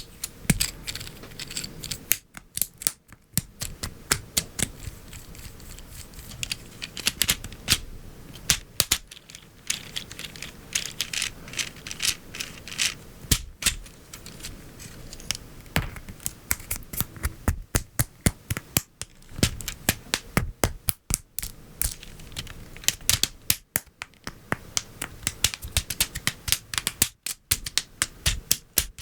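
LEGO Technic plastic parts being handled and snapped together: quick, irregular clusters of sharp clicks and light rattling as pins and beams are pressed into place.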